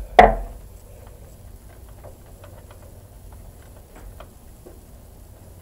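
Hand tools and metal parts being handled on a stopped diesel engine's injection pump and fuel lines: one sharp clank just after the start that rings briefly, then scattered light clicks and taps.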